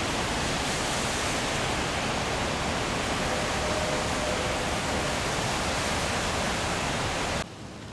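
Floodwater in a swollen creek rushing through a concrete channel and under a road bridge: a steady, loud rush of turbulent water that cuts off abruptly near the end.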